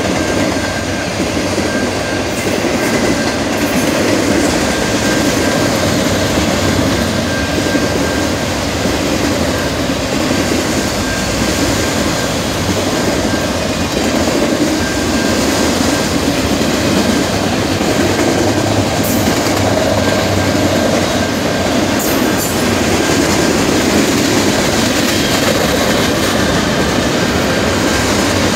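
Norfolk Southern freight train's cars rolling past a grade crossing: a steady, loud noise of steel wheels on rail. A faint thin high tone sounds on and off through the first half.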